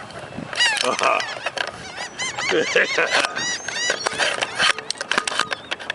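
A flock of gulls squawking, many short, arching high-pitched calls overlapping one another, with a few sharp clicks in the second half.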